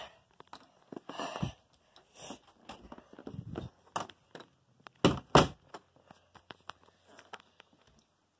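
Handling noise from a phone held close: rubbing, rustling and scattered clicks and knocks against the microphone, with two louder knocks about five seconds in.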